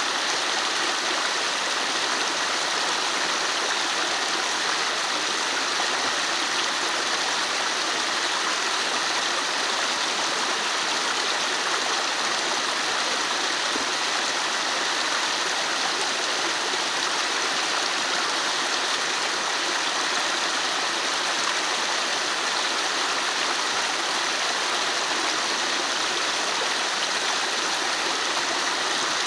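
Shallow forest stream running, a steady, unbroken rush of water.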